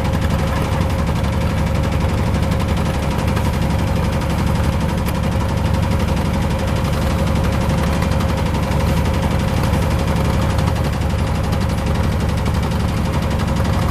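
Small boat's engine running steadily, heard aboard, with a rapid even pulsing and a steady hum.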